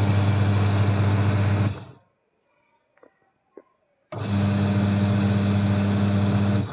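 Washing machine's wash motor and gearbox running in two steady spells of about two seconds each, with a gap between them holding a couple of faint clicks. It hums evenly without a khad-khad rattle, its loose gearbox pulley now tightened with a rubber washer.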